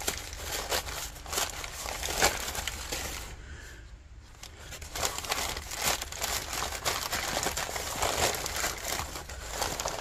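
Brown kraft packing paper crumpling and crinkling as it is pulled open by hand, with a brief quieter pause about three and a half seconds in.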